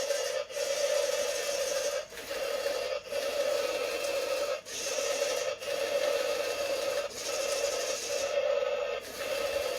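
Toy RC vehicle's small electric motor and plastic gears running with a steady whine and gritty rasp, stopping and starting about eight times with brief pauses.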